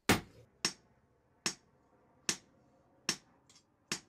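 Hand hammer beating red-hot iron on a small post anvil while forging: six sharp metallic blows, a little more than one a second, each with a brief ring.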